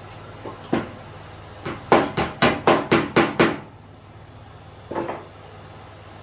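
Hammer blows on a cable clip's nail, fixing a power cord to a wooden table top. Two light taps, then a run of seven sharp blows at about four a second, and one more blow about five seconds in.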